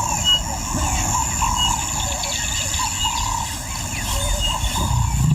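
Bush ambience: a steady high insect drone, with short bird chirps repeating about once a second and other wavering calls, over a low rumble.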